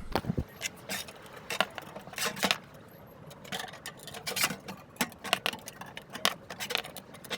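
Irregular light metal clicks and taps as small sheet-metal tabs are bent over to hold a grille screen onto a garden tractor's side panel.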